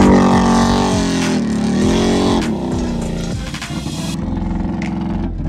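ATV engine revving hard in deep mud and water, its pitch falling and rising with the throttle and then running steadier and lower.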